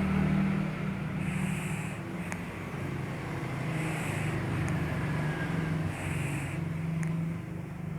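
Domestic cat snoring in its sleep: three rasping breaths, one about every two and a half seconds, over a steady low hum.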